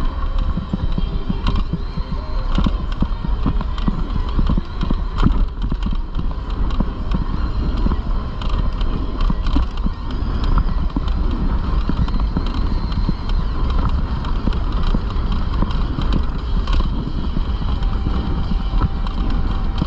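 Heavy wind rumble on the microphone and road noise from riding a bicycle through city traffic, with frequent small knocks and rattles.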